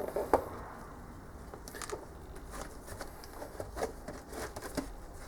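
Packaging of a micrometer set being handled and opened: a few scattered light clicks and rustles.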